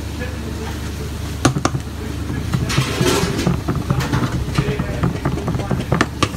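A spoon clicking and scraping against a deep pizza pan as a thick filling is spooned onto the dough, with a longer scrape about three seconds in. A steady low kitchen hum runs underneath.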